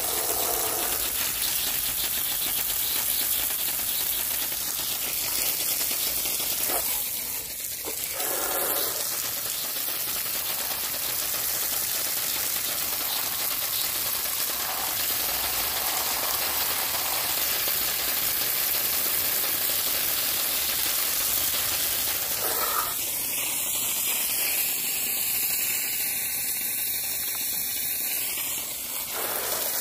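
Steady hiss of a water jet from a handheld spray gun striking plastic toy trucks and wet concrete, dipping briefly about seven seconds in and again near the end.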